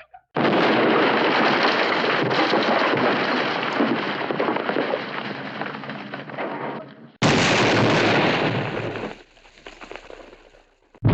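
Two Hanna-Barbera cartoon explosion sound effects in a row. The first starts suddenly and runs for about six seconds before dying away. The second hits sharply about seven seconds in, stays loud for about two seconds, then fades out.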